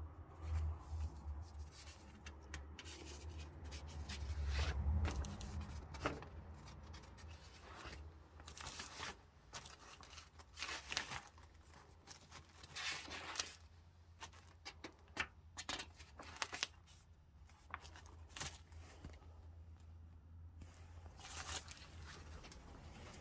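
Irregular crunches, scrapes and rustles of someone moving about and handling things in a small room, over a low rumble of the phone being handled.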